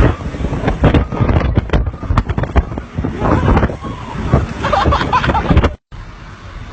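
Storm wind gusting hard against the microphone in uneven bursts, with faint voices under it. About six seconds in the sound cuts off for a moment, and a quieter steady rush of wind follows.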